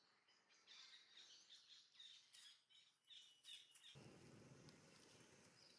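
Near silence, with faint high birds chirping in the background for the first few seconds. About four seconds in, a faint low noise comes in.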